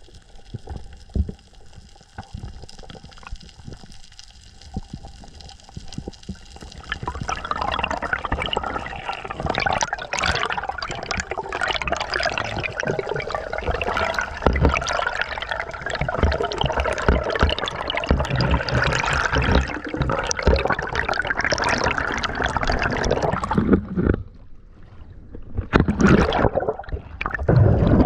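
Water sloshing, bubbling and gurgling around a spearfisher's camera during a dive. It is quieter at first, grows much busier and crackly from about a quarter of the way in, dips briefly, then picks up again near the end.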